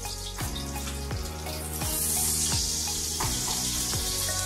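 Garlic cloves frying gently in olive oil, a soft sizzle that swells about two seconds in, under background music with a steady beat.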